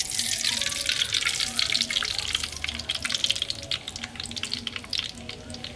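Cooking oil sizzling and crackling in a hot pan, with many sharp spits. It starts suddenly and slowly thins out.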